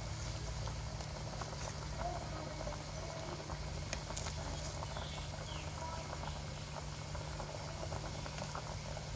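Soup boiling hard in an aluminium pot, a steady bubbling, while a metal ladle dips in to skim off the foam with a few light clinks. A steady low hum runs underneath.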